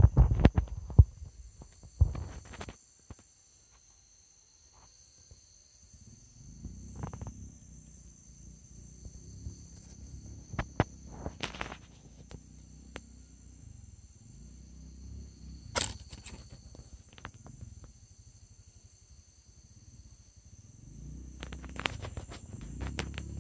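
Night insect chorus of crickets and katydids holding several steady high-pitched tones. Sharp knocks and clicks come in the first two or three seconds and a few more times later, with a low rumble from about six seconds in.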